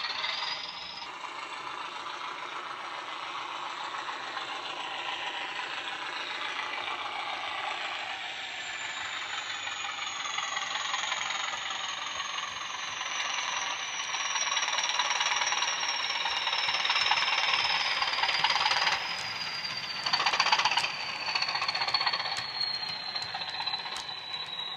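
Model Class 20 diesel's DCC sound decoder playing a recorded English Electric engine sound through its small twin speakers, with a high whistle that slowly falls in pitch. The rattle of the model wagons' wheels on the track grows louder as they pass close.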